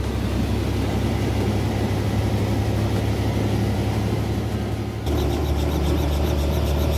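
Helicopter running, a loud steady engine and rotor drone. About five seconds in it changes abruptly to a lower drone with a fast, even rhythmic beat of the rotor.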